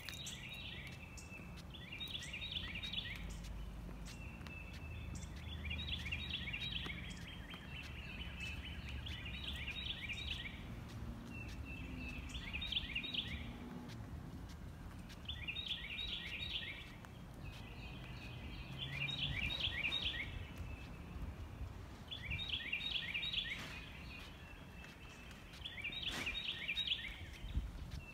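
A songbird singing the same short phrase of quick, rapidly repeated notes over and over, about one phrase every two to three seconds. A steady low rumble runs underneath.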